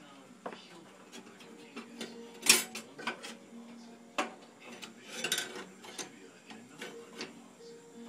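Irregular knocks and clatters of a plastic mini-fridge door being handled, the loudest knock about two and a half seconds in, with a faint low hum coming and going underneath.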